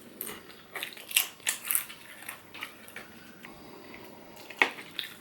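Close-up eating sounds: crunchy bites and chewing, with a run of sharp crunches in the first two seconds and a single louder crunch near the end.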